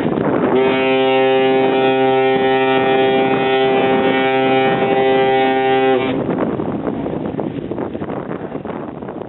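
Ship's horn sounding one steady long blast of about five and a half seconds, the sign of a vessel leaving its berth. Wind rushes over the microphone before and after the blast and fades out near the end.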